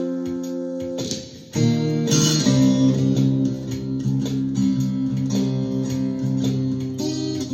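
Ovation Koa thinline guitar in open C tuning: a chord rings and fades, then a fresh chord is struck about a second and a half in and rings on under repeated picked notes.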